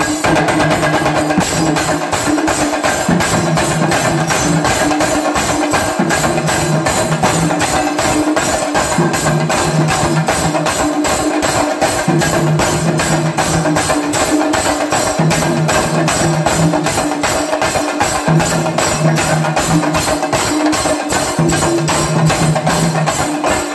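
Kerala singari melam ensemble of chenda drums beaten with sticks, playing a loud, fast, driving rhythm of rapid strokes, with deeper drum notes coming in repeated phrases.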